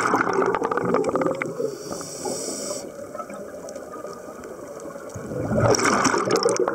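Scuba diver breathing through a regulator underwater: a gurgling rush of exhaled bubbles at the start, a short hiss of inhalation about two seconds in, then another burst of exhaust bubbles near the end.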